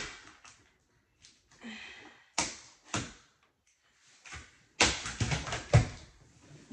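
Packing tape on a cardboard shipping box being slit with a small hand tool, making scratchy cutting sounds and a few sharp knocks. About five seconds in, the flaps are pulled open in a burst of cardboard rustling and thumps, the loudest part.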